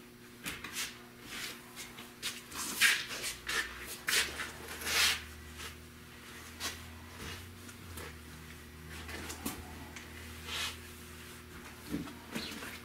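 Hand work at the edge of a fiberglass truck cap: a series of short, irregular rustling and scraping noises, busiest in the first half, over a steady low hum.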